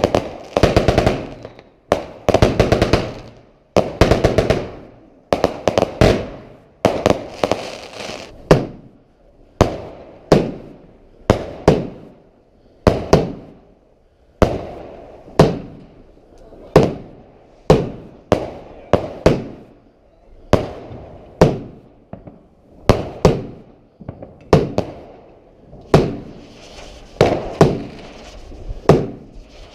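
Fireworks going off in steady succession: sharp bangs, each fading away, fired in quick clusters over the first few seconds and then about one a second. A crackling hiss comes in near the end.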